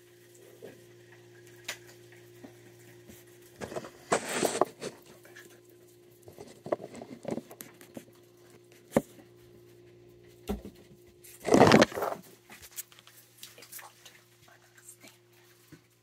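Raccoons moving about and handling food on a table: scattered light taps and clicks, with two louder scrabbling bursts about four and eleven seconds in.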